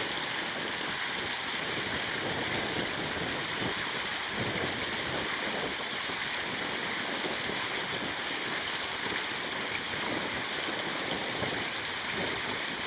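Water pouring from a concrete outflow into a canal, a steady, unbroken rush of splashing water.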